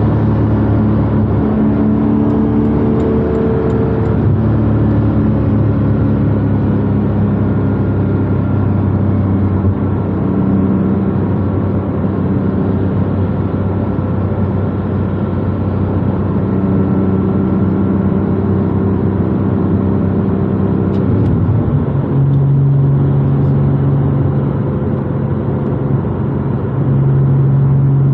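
Porsche 718 Cayman GTS 4.0's naturally aspirated flat-six through a SOUL valved exhaust, heard from inside the cabin while cruising at a steady speed: a steady engine and exhaust note whose pitch steps to a new, deeper-weighted tone about three-quarters of the way through.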